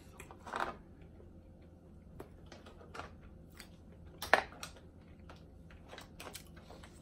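Fingers picking through a tray of boiled seafood, crab and mussel shells clicking and crackling against each other in small scattered clicks, with one louder click about four seconds in.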